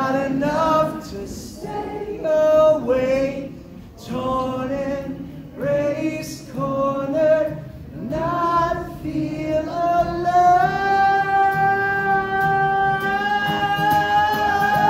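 Live acoustic song: a singer over strummed acoustic guitar, with many voices in the crowd singing along. Short sung phrases give way, about ten seconds in, to one long held note.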